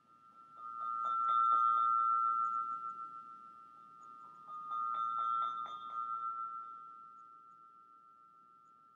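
A sustained metallic chime tone rings on one pitch. It swells twice, each time with a quick cluster of light tinkling strikes, then slowly fades.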